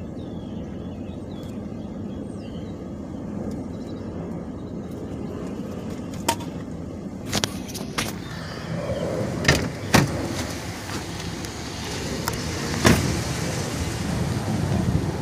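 A car engine idling with a steady low hum. From a little past halfway there is a series of sharp clicks and knocks as a car door is opened and shut, then wind noise on the microphone in the last few seconds.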